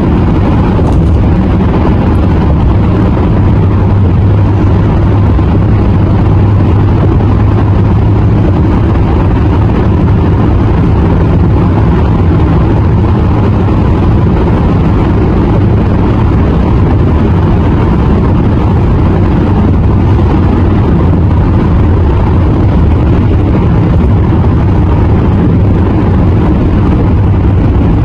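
Steady low road rumble of a car driving at highway speed, tyre and engine noise heard from the moving car, with a faint steady hum underneath.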